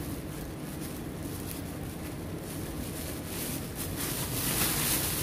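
Thin plastic bag and cling film rustling and crinkling as fingers work at a knot in the wrapping, getting louder near the end, over a steady low background rumble.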